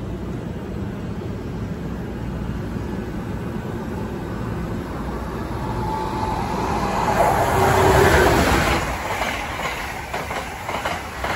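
Amtrak passenger train passing close on the near track. A steady low rumble builds to its loudest about eight seconds in as the train rushes by, and near the end come rapid clicks of wheels over the rail joints.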